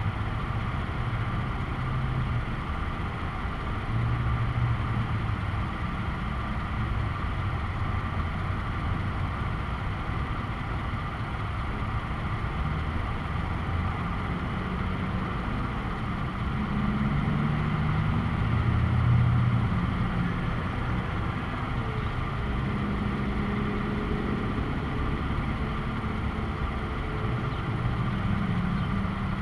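Steady low rumble of vehicle engines and road traffic. It swells louder about four seconds in and again for a few seconds after about seventeen seconds, as vehicles pass.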